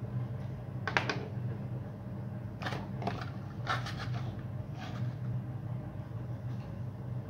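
Several light knocks and clatters of hard objects being handled and set down on a wooden table: a metal glow-plug igniter and a plastic fuel tank. The loudest knock comes about a second in, over a steady low hum.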